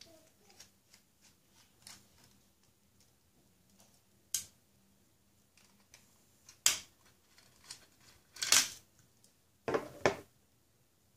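Small screwdriver unscrewing the tiny screws of a 2.5-inch laptop hard drive's metal mounting frame: faint scraping ticks, then a few separate sharp clicks and knocks as the small metal parts are handled. A close pair of knocks near the end comes as the drive is set down on a wooden table.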